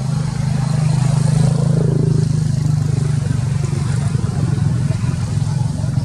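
A motor vehicle engine running steadily with a low, even hum, swelling slightly about a second in.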